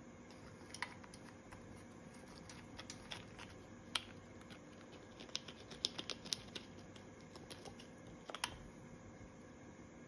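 Green-winged macaw's beak picking at and cracking nuts in its food bowl: a faint run of irregular sharp clicks and cracks, a few louder snaps among them.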